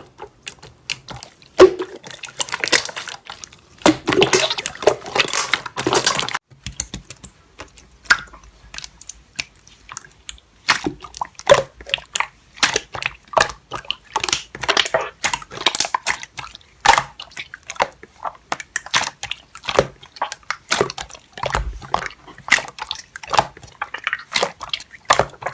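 Slime being squished and pressed by hand, giving a run of irregular wet clicks and pops, denser in a couple of stretches near the start.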